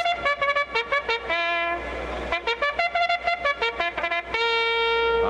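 Opening theme music: a melody of short, quick notes, a brief break about two seconds in, then more quick notes ending on one long held note.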